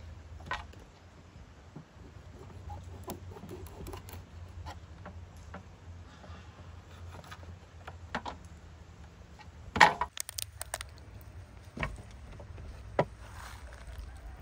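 Scattered light clinks and knocks of things being handled, with one much louder knock about ten seconds in, over a steady low rumble.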